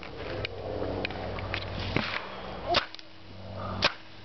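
Paintball marker shots: about half a dozen short, sharp pops at irregular intervals, the two loudest about three-quarters of the way through.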